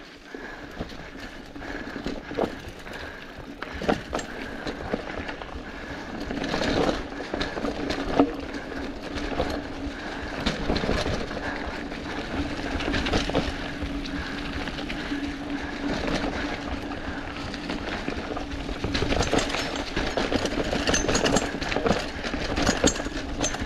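Mountain bike rolling down a dirt singletrack strewn with dry leaves: the tyres crunch over leaves and dirt and the bike rattles over bumps, with many sharp knocks.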